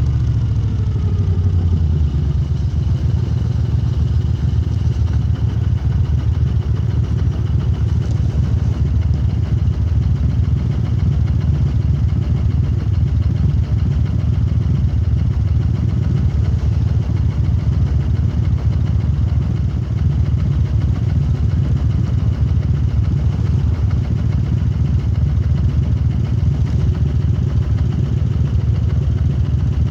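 Moto Guzzi transverse V-twin running through Lafranconi exhaust silencers, with its note dropping in the first second or two and then holding a steady, even beat.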